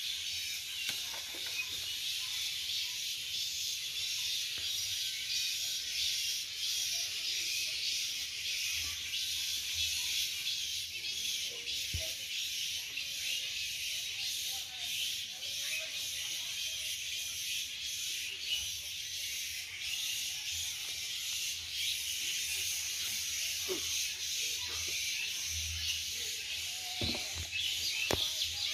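A steady high-pitched buzzing hiss of insects, with a few faint knocks and rustles of handling now and then.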